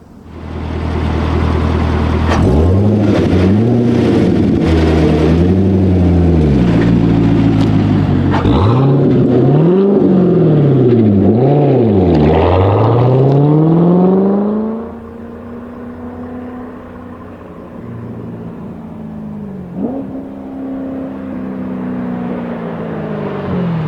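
Toy remote-control car's electronic engine sound effect: a start-up, then repeated revving that rises and falls in pitch. It is loud for about the first fifteen seconds, then drops to quieter revving.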